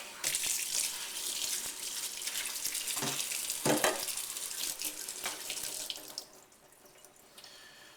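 Kitchen tap running into the sink, rinsing away sharpening grit. It is shut off about six seconds in.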